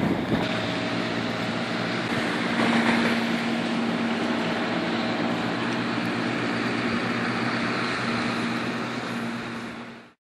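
Diesel engine of a fireboat running steadily as the boat moves off across the water, a low hum under a broad hiss. It fades out and cuts to silence near the end.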